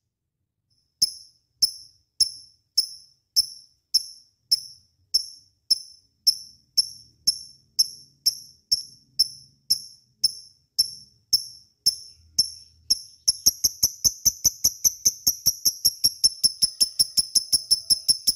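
Lovebird calling in a long series of sharp, high-pitched chirps, evenly spaced at a little under two a second, then speeding up to about four or five a second near the end.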